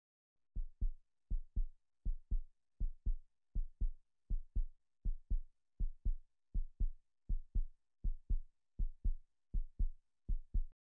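Heartbeat sound effect: paired low thumps in a steady lub-dub rhythm, about eighty beats a minute, with silence between the beats.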